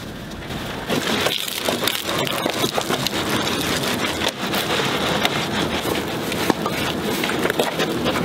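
Water splashing and spattering during a hand car wash, with a soapy wash mitt worked over the wet lower panels. The noise gets louder about a second in.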